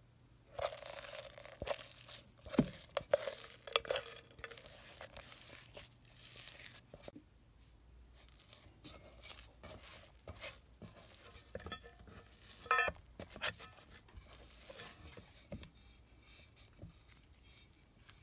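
Hands squeezing and kneading crumbly glutinous rice flour dough in a stainless steel bowl: irregular crunching and crackling of the dry flour lumps, with sharp clicks where fingers and dough hit the metal. It starts about half a second in.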